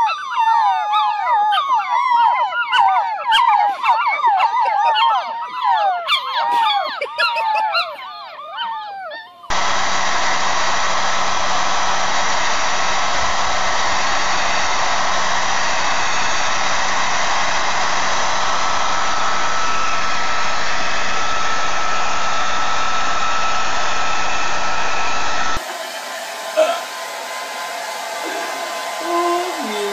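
Several puppies howling together in wavering, sliding pitches for about nine seconds. Then a loud, steady rushing noise with a faint hum, which cuts off suddenly. Near the end, a quieter hair dryer blows on a dog, with a few short sounds over it.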